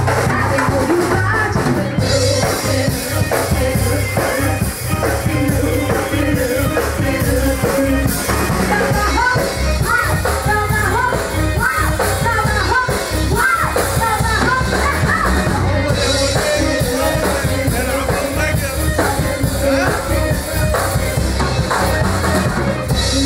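Live band playing loudly, with drum kit and electric guitar, and a woman singing into a microphone over the top.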